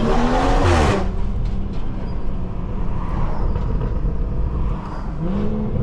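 Tuned BMW 540i turbocharged straight-six with downpipe and catback exhaust accelerating, its note rising. There is a brief loud burst about a second in, then the engine drones steadily before climbing in pitch again near the end.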